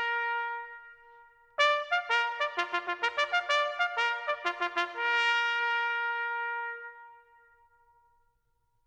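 Solo bugle call on a brass instrument, keeping to a bugle's few natural notes. A held note breaks off about a second in, a quick run of short separate notes follows, and then a long held final note fades away.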